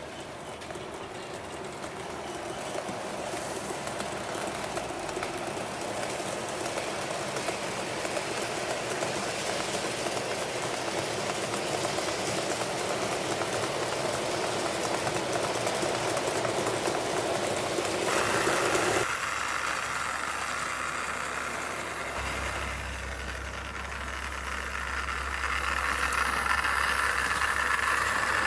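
Model train running on its track, a steady rolling and motor noise that grows louder over the first two-thirds. It changes suddenly about 19 s in to a different running sound, with a low hum joining a few seconds later.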